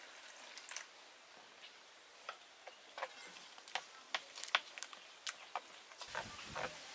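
Spoon stirring thick batter in a stainless steel bowl: light, irregular clicks and taps of the spoon against the bowl, with a short louder scrape near the end.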